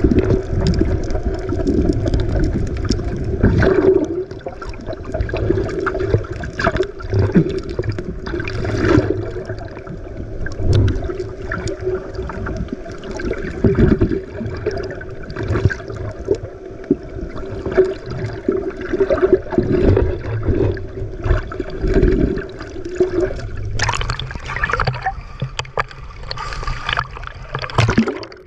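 Sea water splashing and gurgling around a small boat, over a steady engine drone. About 24 s in the drone drops away and the water turns brighter and hissier.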